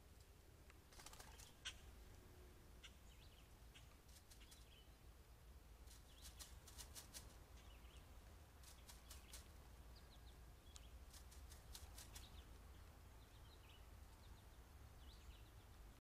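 Faint bird wings flapping: several short runs of quick, evenly spaced wingbeats, with faint short bird chirps in between.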